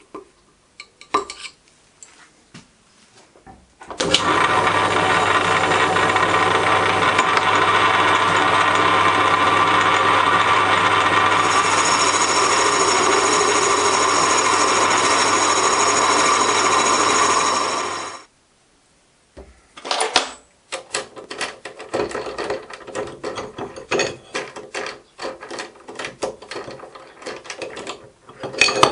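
Metalworking machine tool running steadily under power for about fourteen seconds with a constant low motor hum, stopping abruptly; light metallic clicks and clatter of handling tools and the part before it starts and after it stops.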